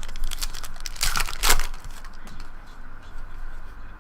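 Plastic packaging crinkling and rustling as trading cards are handled, in a burst of crackles that is loudest in the first second and a half, then a few faint ticks.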